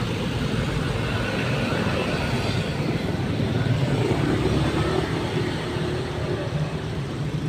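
Heavy vehicle engine, most likely a bus, running with road traffic noise: a steady low rumble that swells slightly about four seconds in. No telolet horn melody is heard.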